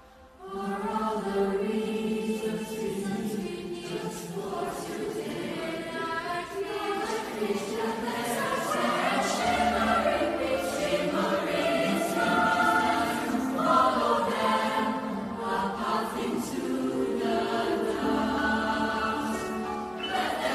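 Mixed youth choir singing in several parts, coming in together about half a second in after a brief pause.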